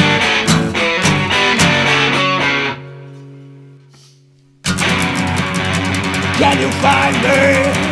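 Rock band playing, with electric guitar and bass. About two and a half seconds in, the band stops on a single held chord that rings and fades away. About two seconds later the full band comes back in abruptly.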